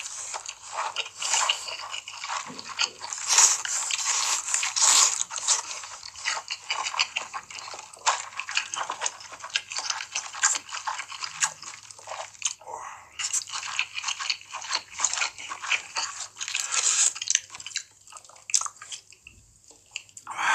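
Close-miked biting and chewing of crunchy food: a dense run of crackling crunches that thins out and nearly stops near the end.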